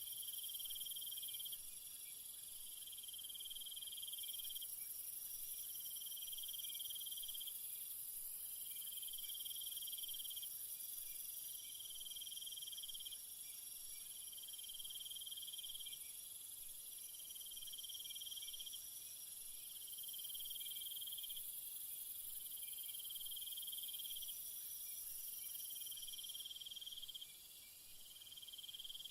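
Jungle insect chorus: crickets trilling in a steady, very high-pitched drone, with a lower trill that comes in pulses about a second and a half long, repeating every two to three seconds.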